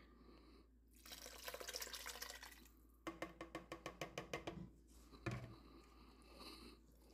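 Chicken broth poured from a plastic measuring jug into a Dutch oven of gumbo base: a faint splashing pour, then a quick run of drips, about eight a second, and a single soft knock a little past five seconds.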